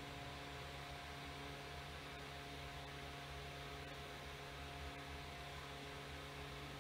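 A steady low electrical hum with a faint hiss underneath, unchanging.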